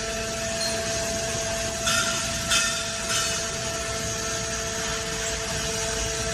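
MC315 scrap metal push-out baler running: a steady hydraulic machine hum with two held tones, and three short bursts of noise about two to three seconds in.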